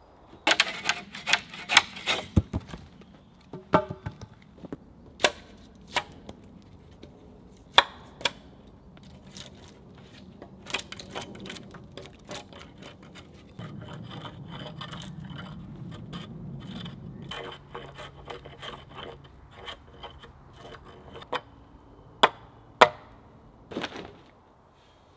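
Wooden poles knocking and scraping as a long timber pole is handled and lifted onto a log roof frame: a string of sharp knocks, a longer scrape in the middle and two loud knocks near the end.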